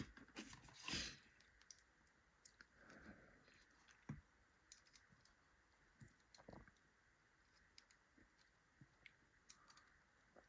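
Faint, scattered clicks and light scrapes of small metal tools working at a retaining ring on a lock core, with a sharper click about four seconds in and another a couple of seconds later.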